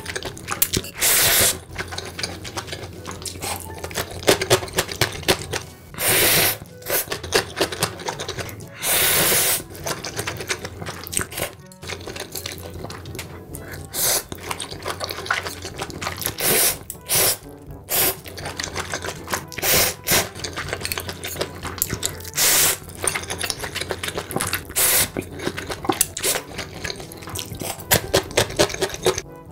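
Close-miked eating sounds: noodles slurped in irregular noisy bursts of up to about a second, with wet chewing and smacking between.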